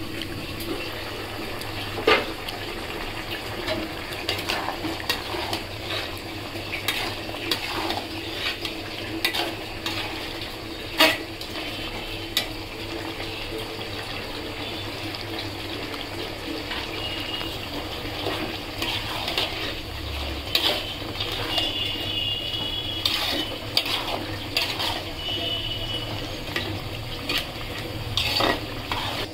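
Metal spatula stirring and scraping a simmering bottle gourd and fish-head curry in an aluminium pot, with scattered clinks and knocks against the pot. The sharpest knocks come about 2 and 11 seconds in, over a steady hiss.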